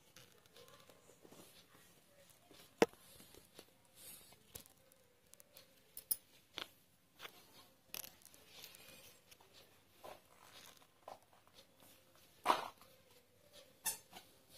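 Needle and embroidery thread being drawn through cloth stretched in a wooden embroidery hoop: faint scattered rustles and clicks, with a sharp tick about three seconds in and a louder rustle near the end.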